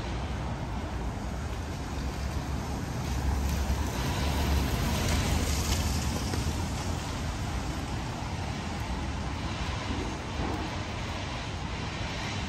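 Road traffic: a car passes, swelling and fading about four to six seconds in with a low rumble and tyre hiss, over steady traffic noise.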